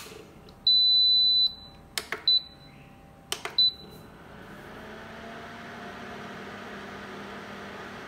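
Philips induction cooktop being switched on: button clicks, each answered by a high beep, one long and then two short. About four seconds in, the cooktop's cooling fan starts with a steady rush of air and a faint hum.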